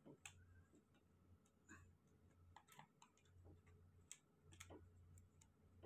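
Near silence with faint, irregular small clicks and ticks from a phone and small parts being handled, over a low hum that comes and goes.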